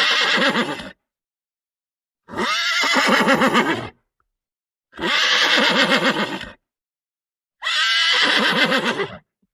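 Horse whinnying four times, each a quavering call of about a second and a half, with complete silence between the calls.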